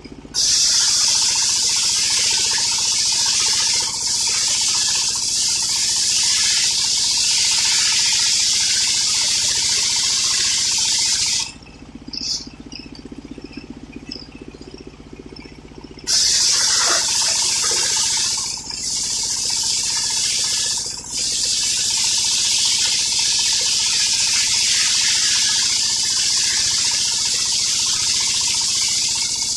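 Homemade circular sawmill blade cutting through old coconut-palm wood: a loud, steady cut lasting about eleven seconds, a pause of about four seconds with only the saw's engine running, then a second long cut that runs on with two brief dips.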